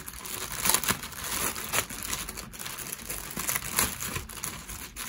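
A clear plastic bag crinkling and crackling as it is handled and opened, with many small sharp crackles and a few louder crunches.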